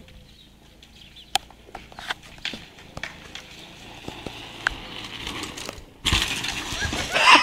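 Light clicks and rattles from a bicycle. About six seconds in, a sudden loud rush of rustling noise begins as a bicycle rides into tall grass.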